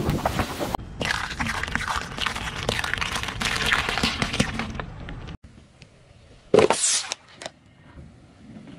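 Eggshells cracking and crunching under a car tyre as it rolls over raw eggs: a dense run of small cracks that stops abruptly. After a short quiet stretch comes one loud sharp crack.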